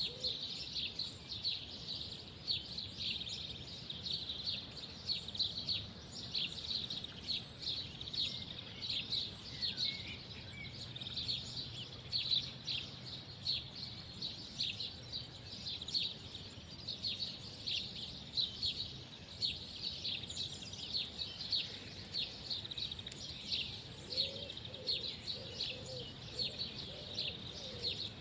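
Many small birds chirping in a dense, continuous chorus of short high calls, over a faint low rumble. Near the end a lower, wavering call that fits a dove or pigeon cooing joins in.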